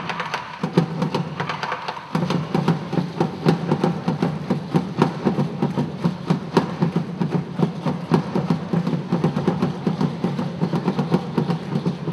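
Live drum ensemble playing fast Afro-Haitian drumming, a dense, driving pattern of strikes. The deeper drums come in fully about two seconds in.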